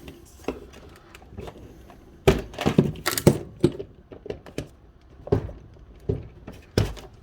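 Handling noise from plastic parts: a scatter of clicks and knocks, busiest a couple of seconds in, with another sharp knock near the end, as the drill and its charger are set up to be plugged in.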